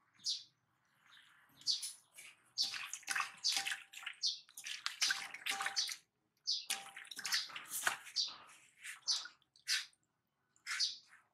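Water splashing and sloshing in a stainless steel basin as a baby monkey is dipped and washed by hand, in many irregular splashes with short pauses.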